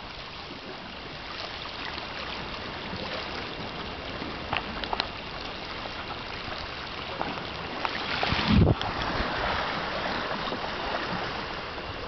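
Sea surf washing against rocks, a steady rush with wind on the microphone, rising to a louder rumbling gust about eight and a half seconds in.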